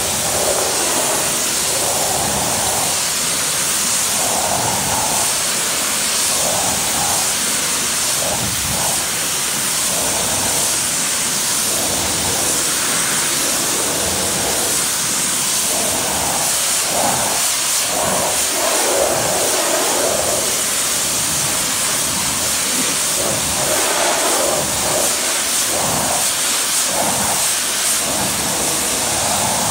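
Pressure washer lance spraying a steady high-pressure jet of water onto a car's door panels, rinsing off snow foam pre-wash. The hiss of the spray shifts in tone as the jet sweeps across the panels and sills.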